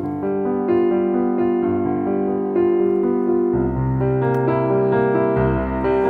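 Background piano music with held notes; deeper bass notes come in about three and a half seconds in.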